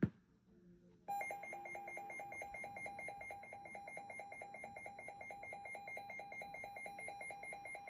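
Weather alert radio sounding its electronic alert alarm: a rapid, evenly pulsing two-pitched beep that starts about a second in and runs for about seven seconds, signalling an incoming warning.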